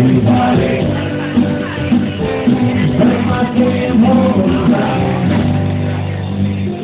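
Live rock band music: two pianos, electric bass guitar and a drum kit playing, with singing.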